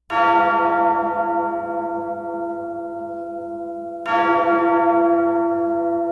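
A bell tolls twice, about four seconds apart. Each stroke rings out with many overtones and fades slowly.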